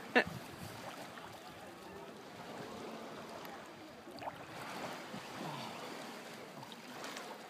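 Shallow seawater sloshing and lapping gently around a man swimming breaststroke, a soft, even water noise.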